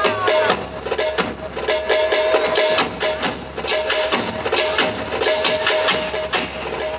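A group of drummers beating large double-headed folk drums in a fast, dense rhythm, with music carrying a steady held note that comes and goes.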